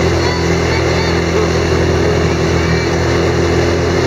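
ATV engines running steadily at cruising speed, a constant low engine drone with no marked change in pitch or level.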